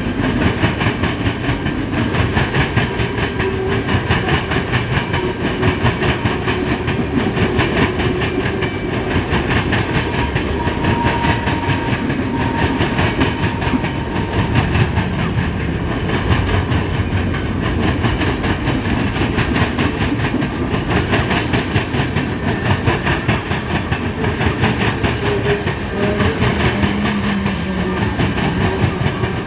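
A freight train's cars rolling past close by: a steady loud rumble with fast, continuous clatter of wheels over the rails. Brief faint squealing tones come and go about a third of the way in.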